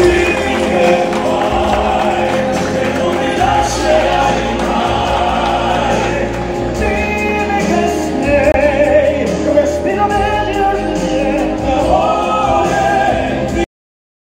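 Live stage-show music: solo singers and a choir-like ensemble singing over backing music. It cuts off abruptly shortly before the end.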